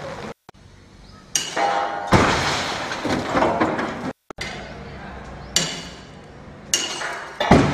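A 1.5-ton steel pendulum slams into the wheeled shake-table platform carrying a half-scale stone-masonry house, several sudden heavy impacts each followed by clinking and rattling of the stone and mud-mortar walls as they shake and crack. The sound cuts out completely twice.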